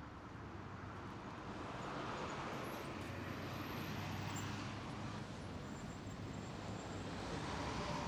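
Steady background rumble and hiss of distant road traffic, slowly growing louder.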